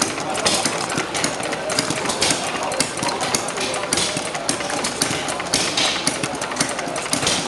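Running model of Henry Ford's Kitchen Sink Engine, a single-cylinder gasoline engine, chugging with a rapid, irregular run of knocks and clicks.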